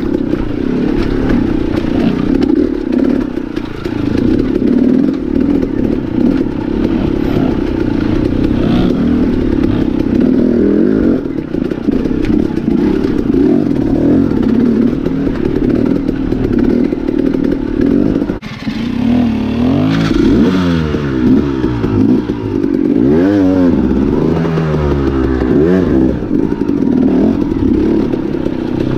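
Enduro dirt bike engine running at low revs on a helmet-camera recording while picking over rock ledges. The engine briefly dips about two-thirds of the way in, then the revs rise and fall repeatedly as the throttle is worked.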